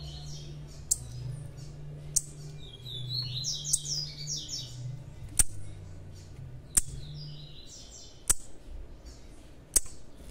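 Young blue-black grassquit (tiziu) chirping: clusters of quick, high chirps, with a sharp tick about every second and a half.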